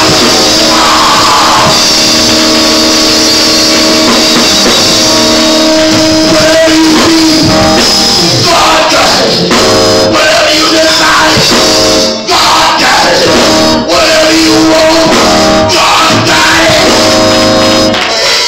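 Loud live church praise music, with held chords, drums and tambourine and voices singing over it, briefly dropping out twice about two-thirds through.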